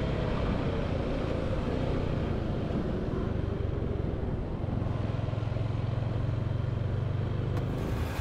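Yamaha Sniper 155 VVA's single-cylinder engine idling steadily, its low hum growing fuller about halfway through. A faint click near the end.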